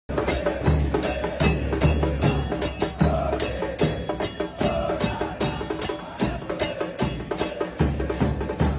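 Football supporters chanting together in unison over a steady drum beat, about two to three strikes a second.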